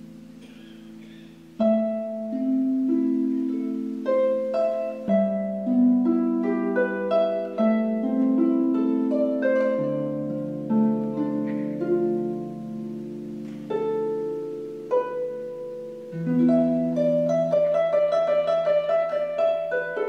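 Concert pedal harp played solo: a soft ringing chord fades, then about a second and a half in a loud plucked chord opens a passage of plucked notes, with quick repeated notes near the end.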